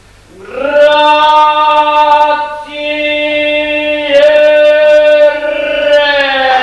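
A single voice sings four long held notes, the first sliding up into pitch; the last wavers slightly near the end.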